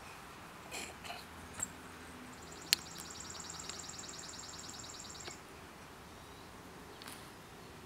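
A high, fast-pulsed trill from a wild animal, starting a couple of seconds in and lasting about three seconds, over faint outdoor background. A single sharp click sounds about a third of the way in.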